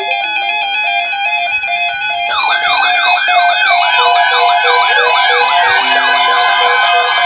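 Several weather alert radios sounding their alarms together for a tornado watch. A stepped electronic beeping tune plays, and about two seconds in, siren-style tones sweeping quickly up and down join in and overlap.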